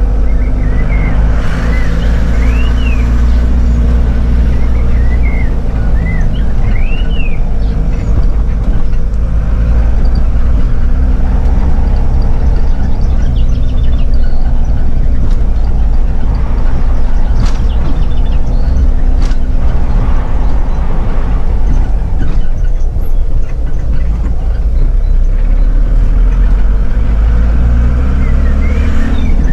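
A motor vehicle's engine running steadily with a heavy low rumble. Birds chirp several times in the first few seconds and again near the end.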